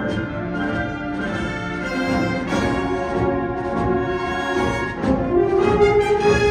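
Full concert band of woodwinds and brass playing sustained chords. About five seconds in, a strong held note enters and the band grows louder.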